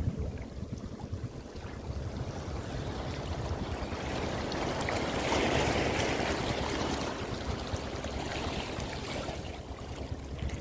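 Rushing water with wind rumbling on the microphone; the water noise swells louder for a couple of seconds around the middle.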